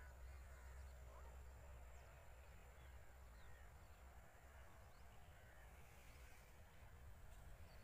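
Near silence: faint open-air ambience with a low rumble and a few faint, distant bird calls.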